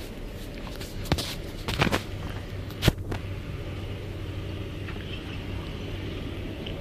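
Steady low hum of a ferry's engines heard from on board while the ship is under way, with a few sharp knocks in the first three seconds.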